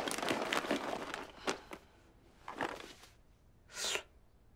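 Cloth rustling as a fabric item is handled and shaken: a run of rustling at first, then a few short separate rustles, the loudest near the end.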